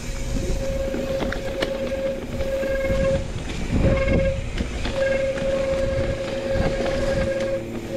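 Mountain bike coasting down a dry dirt trail: the rear hub's freehub buzzes as a steady tone, cut off briefly a few times, over a low rumble of tyres on dirt and sharp rattles from the bike.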